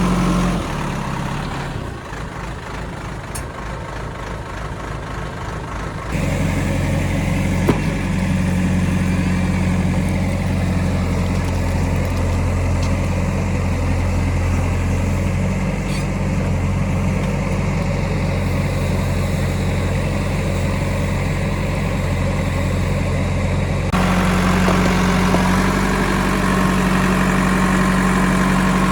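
JCB backhoe loader's diesel engine running steadily. It drops quieter about a second in, comes back louder about six seconds in, and changes tone again abruptly near the end.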